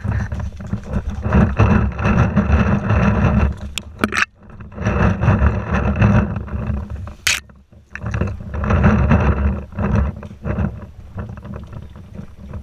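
Wind buffeting the camera microphone, mixed with rustling and scraping of brush and footsteps as the wearer moves along a scrubby dirt trail. The noise drops out briefly twice, with a brief sharp sound about four seconds in and another about seven seconds in.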